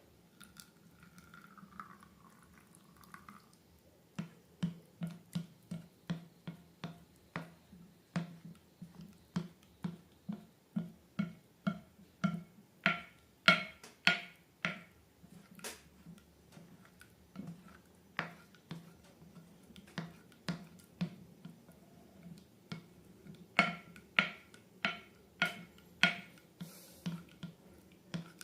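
Slime being squeezed and worked by hand, giving a long run of sharp, wet clicks and pops about two a second, starting a few seconds in.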